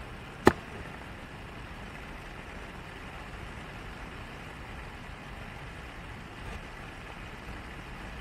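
Steady running noise of a car on the road, low engine and road rumble. A single sharp knock sounds about half a second in.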